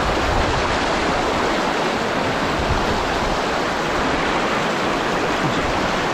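Rushing white water of a fast mountain stream pouring over rocks: a steady, loud, even wash.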